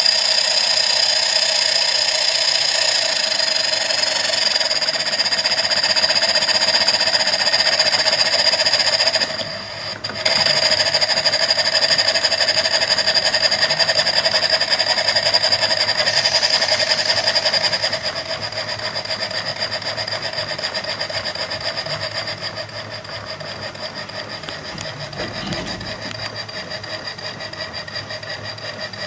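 Cotswold Heritage Perseus model steam engine running at speed, single cylinder and flywheel turning: a fast, even beat with a steady high-pitched whistle over it. The sound dips briefly about ten seconds in and settles a little quieter after about eighteen seconds.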